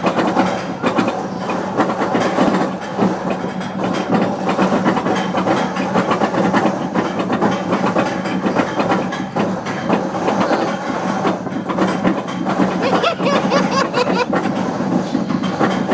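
Roller coaster train being pulled up a chain lift hill: the lift chain and anti-rollback dogs clatter in a fast, steady clicking, with a steady hum underneath.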